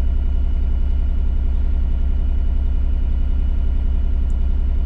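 John Deere excavator's diesel engine running steadily at an even speed, heard from inside the cab as a constant deep drone.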